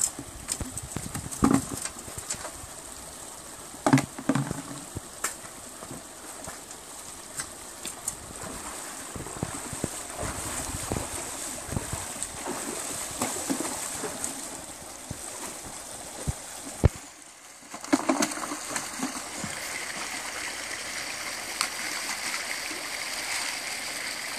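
Shallow stream running over stones, with splashing as someone wades through the water. A few sharp knocks in the first four seconds, and one more about seventeen seconds in, just before a short drop; after that the rushing water is louder.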